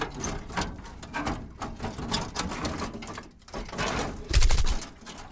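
Logo intro sound effects: a dense run of irregular crackling clicks, then a loud deep impact about four seconds in that dies away.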